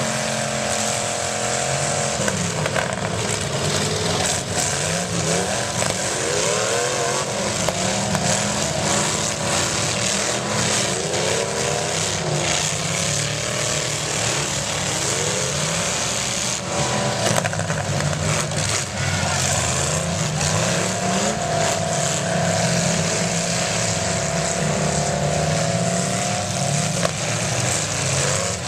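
Several demolition derby cars' engines revving up and down at once, their pitches rising and falling over one another, with scattered bangs of cars colliding.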